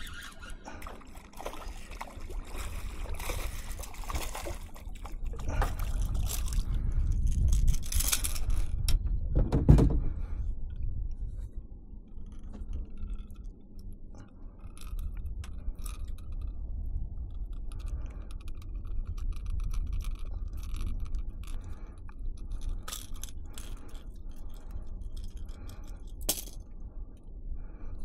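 Fish being landed from a kayak: rod, line and gear scraping, clicking and knocking against the hull, over a low rumble that swells in the first ten seconds and ends in a loud knock.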